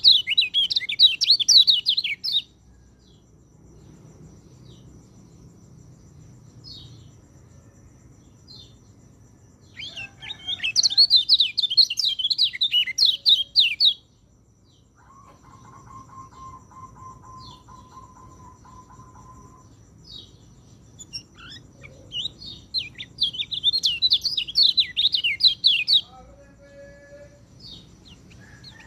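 Orange-headed thrush song: three bouts of rapid, varied chirping phrases, each a few seconds long and about ten seconds apart, with scattered single notes between. A steady held tone sounds for a few seconds in the middle.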